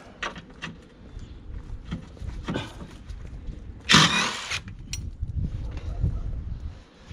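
Hand tools and metal parts clicking, clinking and scraping during work on rusted bumper mounting nuts, with a loud harsh rasp lasting about half a second around four seconds in.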